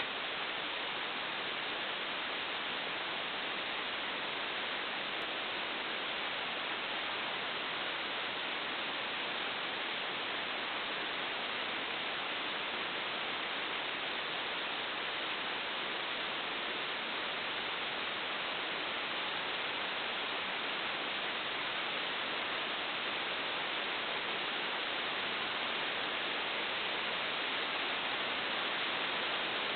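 Steady, even hiss that does not change, with no other sound standing out.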